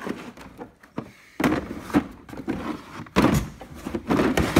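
Hard plastic tool cases being handled and packed back into a steel tool box drawer: a run of irregular knocks and clunks, the loudest about three seconds in and at the end.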